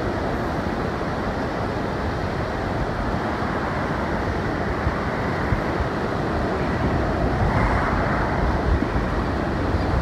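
Low surf breaking and washing up a sandy beach, a steady rush that swells briefly about three quarters of the way through, with wind rumbling on the microphone.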